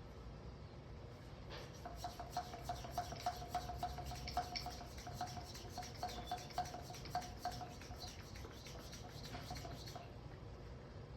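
Hand-held bicycle air pump worked in quick strokes, a few a second, each stroke giving a short squeaky hiss; the pump is inflating the tyre only slowly.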